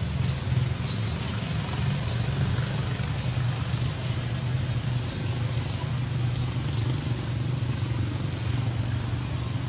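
Steady low rumble with an even hiss of outdoor background noise, like distant traffic or wind on the microphone, with no distinct events.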